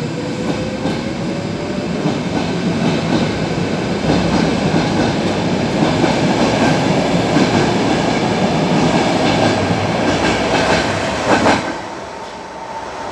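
Stockholm metro C6 train pulling out of the platform and accelerating past: the motors give a rising whine at first, then loud running noise with the wheels clattering over rail joints. A sharp knock comes near the end, and the noise drops off suddenly as the last car clears.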